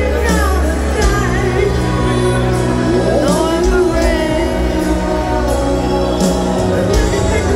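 Live rock band heard over a stadium PA from far back in the crowd: a male voice singing a slow melody over piano and sustained low bass notes.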